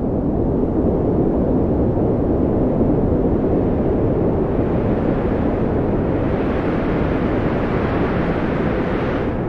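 Wind blowing steadily, turning into a hissier gust from about halfway through.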